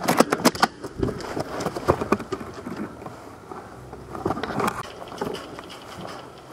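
Irregular clicks, knocks and scraping: a quick cluster of knocks in the first second, then scattered rustle with another burst of clicks about four seconds in.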